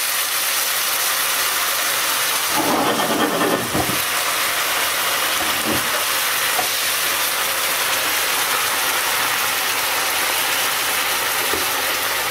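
Pieces of Victoria perch fillet sizzling in soy sauce and oil in a hot pan, a steady hiss. About three seconds in, a spatula briefly stirs and scrapes the pieces around.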